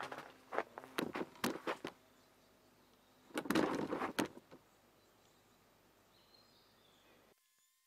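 Footsteps on loose soil: a quick run of steps in the first two seconds, then a louder scraping rustle about three and a half seconds in. After that only faint outdoor background, which cuts off suddenly near the end.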